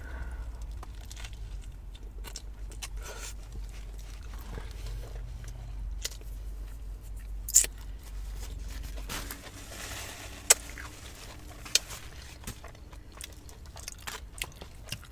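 A person chewing and crunching fried fast food close to the microphone, with wet mouth sounds and a few sharp smacks or clicks, loudest about seven and a half and ten and a half seconds in. A low rumble underneath fades out about nine seconds in.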